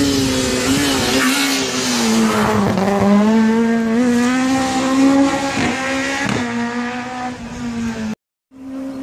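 Rally car engine running hard at high revs as the car climbs through a hairpin. The pitch dips and climbs again as it slows for the bend and accelerates out, with a couple of sharp cracks along the way. The sound cuts off suddenly near the end and another engine note takes over.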